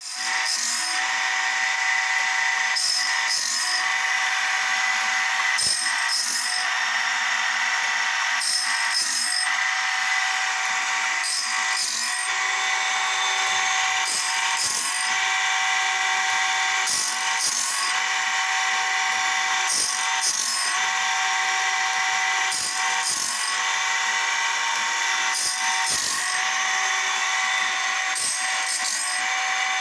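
Homemade automatic bandsaw-blade sharpening machine running. Its grinding wheel motor gives a steady high whine, and about every three seconds the stone grinds a tooth with a brief rasping hiss as the blade is indexed tooth by tooth.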